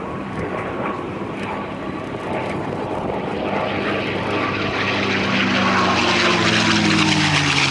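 P-51 Mustang's Packard-built Merlin V12 engine on a low fly-by, growing steadily louder as the plane closes in. In the last couple of seconds the engine's pitch drops as it passes.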